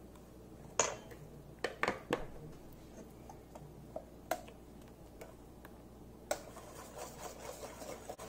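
A wire whisk and silicone spatula stirring a thin egg and coconut milk mixture in a stainless steel bowl: faint scraping and sloshing with a few scattered sharp clicks against the steel.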